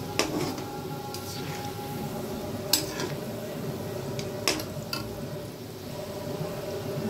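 Balls of bread dough deep-frying in hot oil, sizzling steadily, while a metal slotted skimmer stirs them and clinks sharply against the pan a few times.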